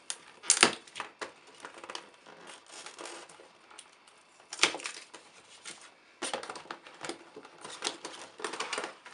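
A cardboard gaming-mouse box and its clear plastic packaging being opened and handled: irregular rustles, crinkles and sharp clicks. The loudest come about half a second in and near five seconds, with a busier stretch of handling towards the end.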